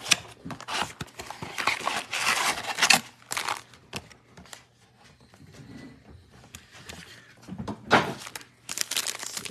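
Cardboard trading-card blaster box being torn open and its foil-wrapped packs pulled out and set down on a table: bursts of tearing and rustling with scattered light knocks, quieter in the middle.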